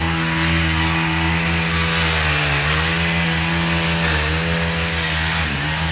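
An engine running steadily at high speed, its pitch sagging briefly three times.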